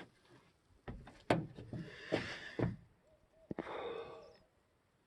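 A few sharp clicks, then two breathy puffs of about a second each: someone drawing on a cigarette and blowing the smoke out.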